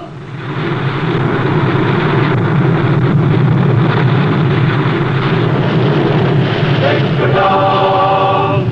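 Steady rush of churning water and spray as a submarine breaks the surface. Near the end a men's chorus starts singing over it.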